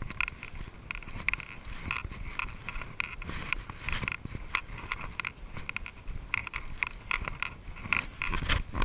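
Mountain bike riding over a leaf-strewn dirt trail: quick, irregular clicks and rattles as it runs over bumps, over a low rumble.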